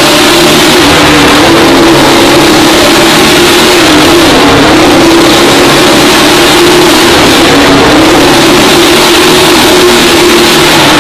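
Motorcycle engine running hard as the bike circles the vertical wooden wall of a wall-of-death drum, very loud and continuous, its note wavering gently up and down every second or two.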